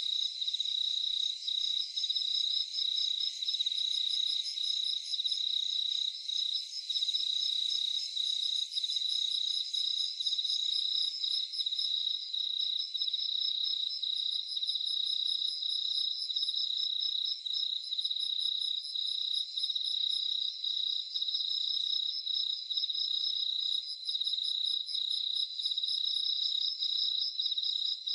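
Crickets chirping at night in a dense, unbroken chorus of rapid pulses, with a higher, thinner trill from another insect starting and stopping in short bouts over it.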